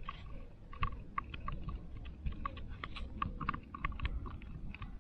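Footsteps on a stony woodland path: a quick, irregular run of small crunches and crackles, over a steady low rumble.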